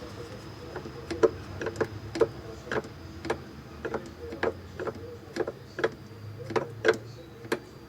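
Sharp mechanical clicks at uneven spacing, roughly two a second from about a second in, over a low steady hum.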